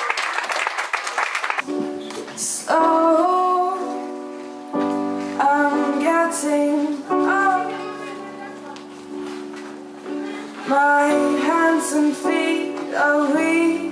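Audience clapping, then about two seconds in a live band comes in with sustained chords and a woman sings the melody over them.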